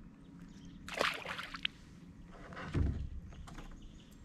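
A short splash of water beside a kayak as a small largemouth bass is let go, followed a couple of seconds later by a low thump against the kayak's plastic hull.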